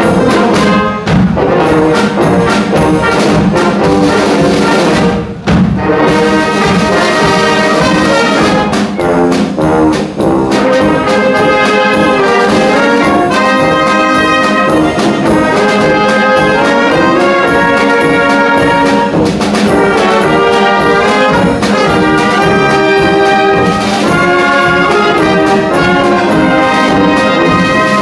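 Brass band playing: trumpets, trombones, saxophones and tubas over a steady beat, with a brief break in the music about five seconds in.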